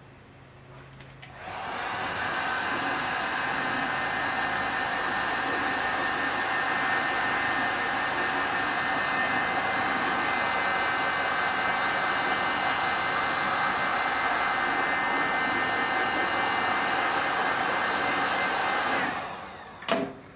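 Electric heat gun blowing steadily, shrinking heat-shrink tubing over a crimped wire end. It switches on about a second and a half in, runs for about seventeen seconds and cuts off near the end, followed by a short knock.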